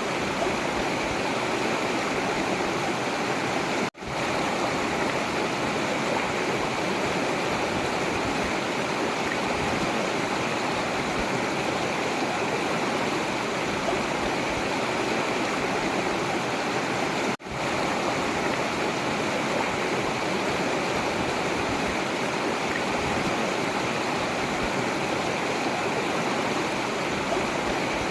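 Forest river flowing, a steady rushing of water that cuts out for an instant twice, about 4 and 17 seconds in.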